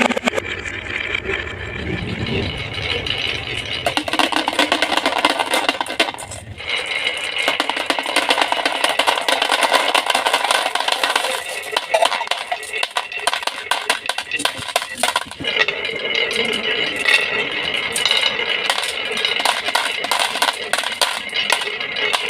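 Marbles rolling down a marble run, a dense stream of small clicks and rattles as they knock along the track, with steady ringing tones over them.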